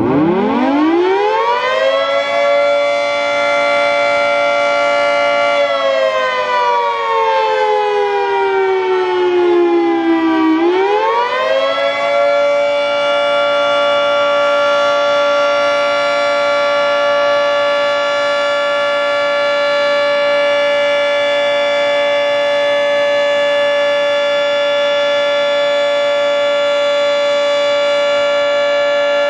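Federal Signal 3T22 tri-tone outdoor warning siren sounding Full Alert, a steady chord. It winds up to pitch at the start, sags in pitch for several seconds, climbs back up and then holds steady.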